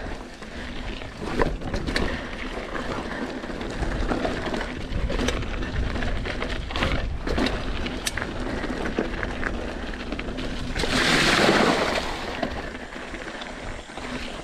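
Mountain bike rolling along a gravelly dirt trail: tyre noise on dirt and stones, with scattered clicks and rattles from the bike. A louder rush of noise lasting about a second comes near the end.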